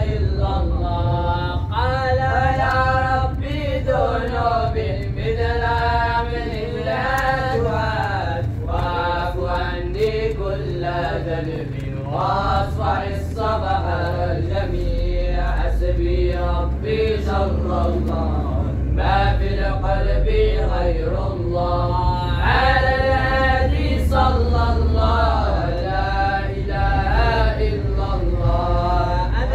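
Islamic devotional nasheed: voices chanting a slow melody over a low steady hum.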